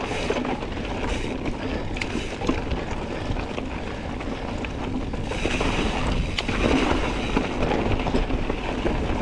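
Wind rushing over the microphone while a Santa Cruz Tallboy mountain bike rolls over a rocky trail, with tyre and trail noise and scattered small clicks and rattles from the bike.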